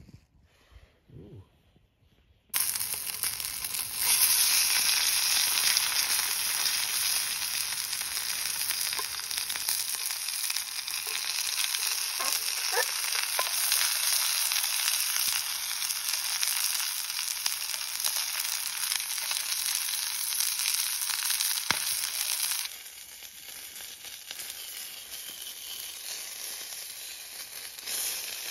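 Steady sizzling from a pan on a Trangia methanol stove, cooking breakfast. It starts suddenly about two and a half seconds in and turns softer about 22 seconds in.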